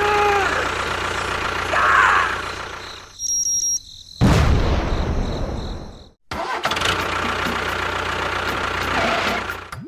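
Engine running steadily, with abrupt cuts where the sound drops out and comes back, and a loud noisy burst about four seconds in.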